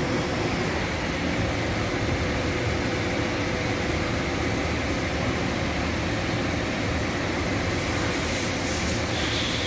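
Steady mechanical hum of a 5-axis mill-turn machine running, with a faint steady whine underneath. A hiss comes in near the end.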